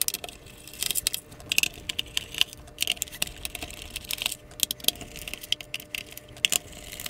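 Irregular small clicks and ticks of a screwdriver backing Phillips screws out of a plastic alarm-clock case, with the loose screws being handled and set down.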